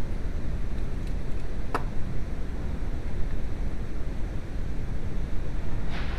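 VW 2.0L AZG four-cylinder engine running with a steady low rumble, and a single sharp click about two seconds in.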